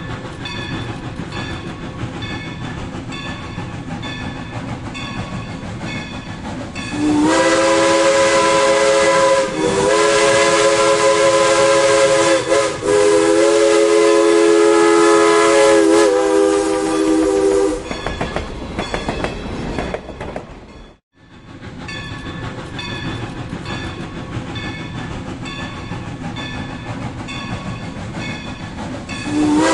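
Steam train passing with an even rhythmic clatter of wheels over rail joints. About seven seconds in, its whistle sounds a long chord of several notes at once, dipping briefly a few times, for about ten seconds. The clatter then carries on, and the whistle starts again right at the end.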